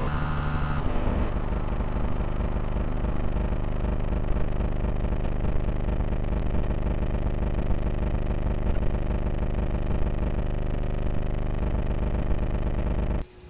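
Steady buzzing noise on the RC car's onboard FPV audio feed, with stepped electronic beep tones in the first second. It cuts off suddenly near the end.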